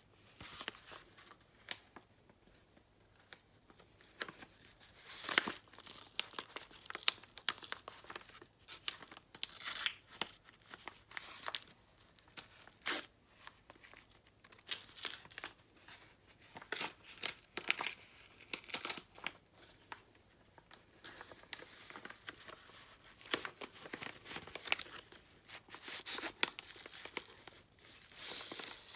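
Paper mail envelope being handled and torn open by hand: irregular paper crinkling and short rips.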